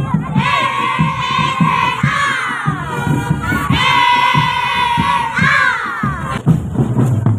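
Indonesian drumband (marching band) playing: marching drums beating under long held melody notes from wind instruments.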